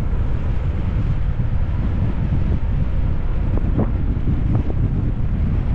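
Wind buffeting a GoPro's microphone on a bicycle coasting fast downhill: a steady low rumble, with a few faint brief crackles around the middle.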